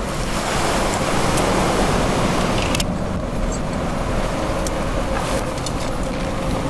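Steady rushing noise of surf and wind, with the nylon tent fabric rustling now and then as it is shaken out and spread.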